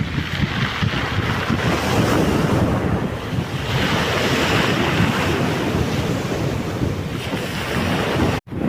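Black Sea waves breaking and washing on the shore, with wind buffeting the microphone. A wave surges loudest around the middle, and the sound breaks off for an instant near the end.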